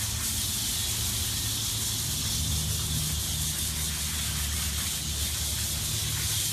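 Hose spray nozzle hissing steadily as water is sprayed over a calf's hide to rinse the shampoo out, over a low steady hum.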